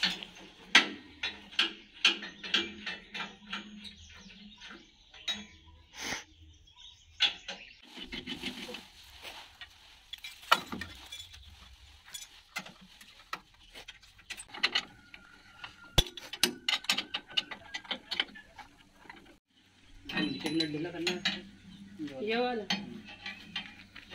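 Irregular metallic clinks and knocks of spanners and steel parts as the tines of a seed drill are loosened and shifted along the frame bar to reset the row spacing from 9 to 12 inches. Voices come in near the end.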